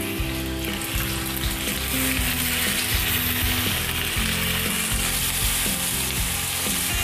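Marinated pork spare ribs sizzling steadily as they fry in oil in a nonstick frying pan, being seared to a golden brown while more pieces are laid into the pan.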